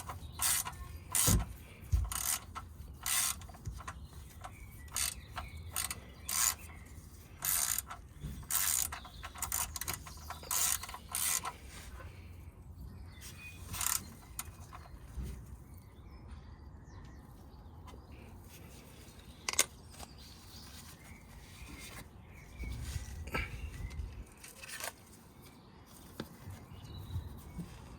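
A run of sharp mechanical ratcheting clicks, about one or two a second, stopping about twelve seconds in; after that only a few scattered knocks.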